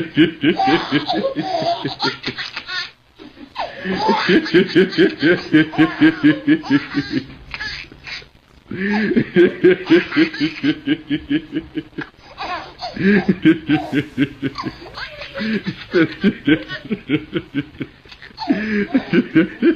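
A man and a baby laughing together: the man's laughter comes in long runs of quick, even 'ha-ha' pulses, about four a second, in several bouts with short breaks between them.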